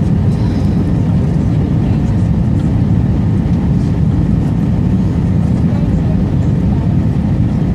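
Steady low cabin roar of an Airbus A320 in flight, from its engines and the airflow over the fuselage, heard from a window seat behind the wing while descending on approach.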